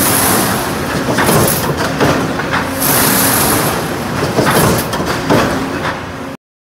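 Stretcher leveler and roll feed line running sheet metal through its rollers at speed: steady loud machine noise with a steady hum, broken by several short bursts of high hiss. It cuts off abruptly near the end.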